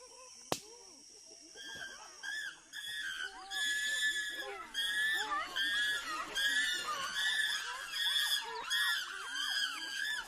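Several chimpanzees calling together in a rising chorus of overlapping high screams and hoots, starting about a second and a half in and running on densely. A single sharp click comes just before the calls begin.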